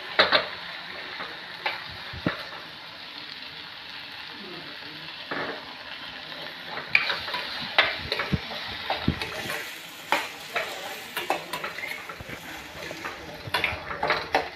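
Onion and moong dal mixture frying in oil in a karahi with a steady sizzle. A metal spoon stirs it, scraping and clinking against the pan at irregular moments.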